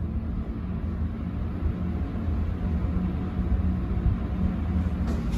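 Hitachi hydraulic passenger elevator travelling between floors: a low, steady hum and rumble inside the car.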